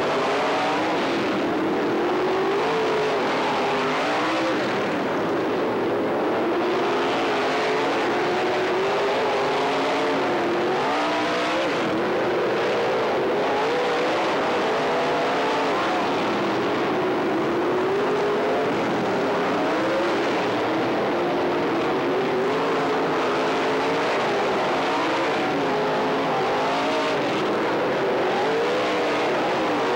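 Several oval-track race car engines running together at racing speed, their pitch rising and falling continually as the cars pass and work through the turns.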